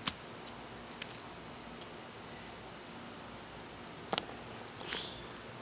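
A freshly punctured LiPo pouch battery charged to about 4.1 V, faintly hissing as it vents. A few light clicks sound over it, with a sharper knock about four seconds in.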